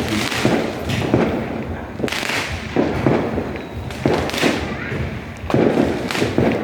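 Fireworks going off in a rapid series of bangs with crackling, about one or two every second.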